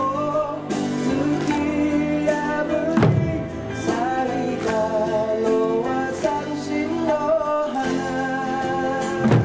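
Okinawan Eisa music: a singing voice over plucked string accompaniment, with a heavy drum strike about three seconds in and another near the end.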